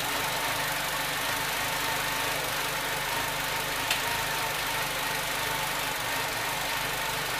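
Nissan car engine idling steadily, heard up close in the open engine bay, with one faint click about four seconds in.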